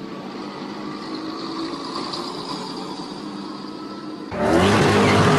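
Steady vehicle and traffic noise heard from inside a moving car. About four seconds in, it cuts abruptly to a much louder, steady vehicle sound with a low drone.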